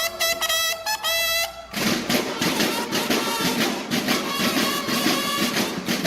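Mexican banda de guerra playing: bugles sound a call of separate held notes, then about two seconds in the snare drums break in with the bugles in a dense, loud march.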